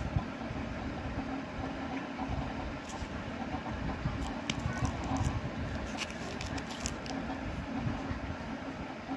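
Plastic VCD cases and their sleeves being handled: short crinkles and clicks, most of them about three seconds in, around four and a half seconds, and in a cluster between six and seven seconds. A steady low rumble runs underneath them.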